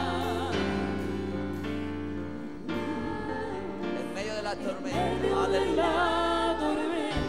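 Live gospel worship music: women singing a slow song into microphones, with vibrato on the held notes, over keyboard accompaniment with long sustained bass notes.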